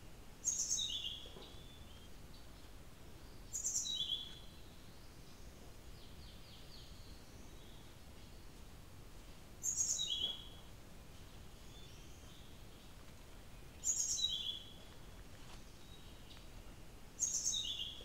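Blue flycatcher song: a short, high phrase repeated five times a few seconds apart, each a very high note dropping to a lower one.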